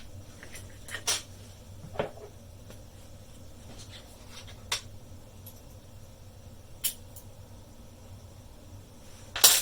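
Scattered sharp clicks and knocks as a lock cylinder and metal picking tools are handled, a few single taps spread out and a louder cluster of clicks near the end.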